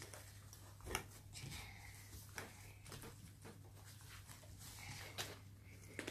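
Hands kneading, squashing and pressing homemade glue slime on a plastic tablecloth: soft sticky squelches and slaps, the loudest about a second in and just after five seconds in, over a steady low hum.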